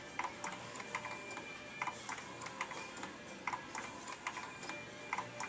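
Baby swing mechanism ticking and clicking as it swings, about two to three sharp clicks a second with a faint ringing tone on some of them.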